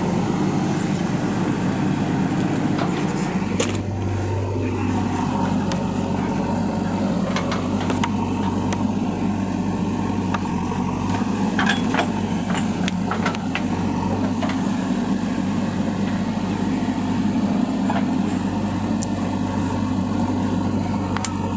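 JCB 3DX backhoe loader's four-cylinder diesel engine running steadily, a deeper steady hum joining about four seconds in and holding. Occasional light clicks and knocks.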